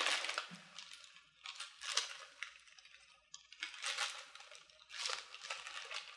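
Crinkly rustling of gold untwisted twist ribbon and red organza being handled and tied, coming in several short spells.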